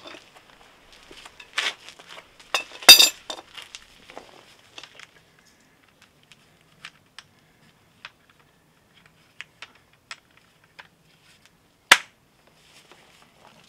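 Scattered metal clinks and clicks of a socket and air impact wrench being fitted onto a lawn mower's blade bolt, with one loud ringing clink about three seconds in and a single sharp click near the end.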